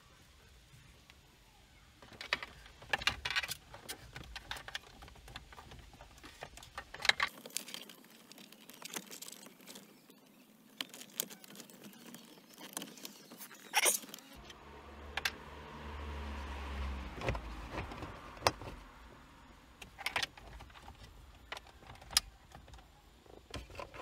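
Clicks, taps and rattles of car interior plastic trim and wiring being handled by hand, with several sharp snaps. A low hum swells for a few seconds about two-thirds of the way through.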